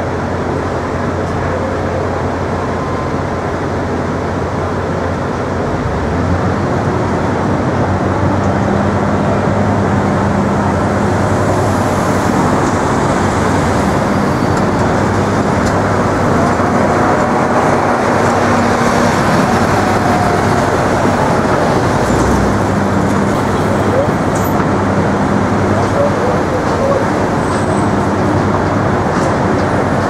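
Steady city traffic noise.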